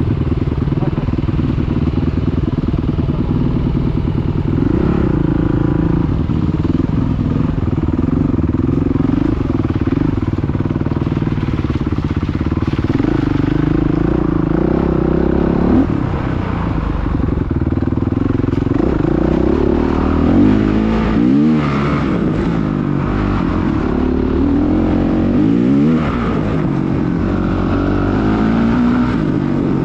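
Dirt bike engine heard from on board while riding, its pitch rising and falling over and over as the throttle is opened and closed, with quicker revving in the second half.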